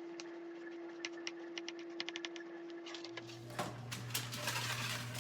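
Kitchen knife slicing zucchini into rounds on a cutting board: a run of quick, uneven taps. About three seconds in, the sound cuts to a rustling handling noise over a low hum.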